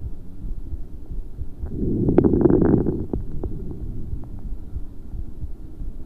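Auscultated lung sounds through a stethoscope: one breath in lasting about a second, with fine crackles, a run of short sharp clicks, clustered toward the end of inspiration. A low rumble runs underneath.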